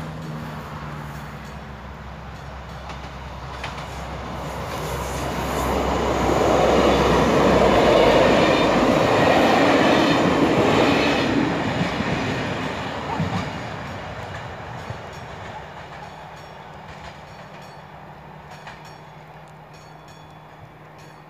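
Passenger train rolling over a level crossing: the rush of wheels on rails swells as it approaches, is loudest from about six to twelve seconds in, and then fades away.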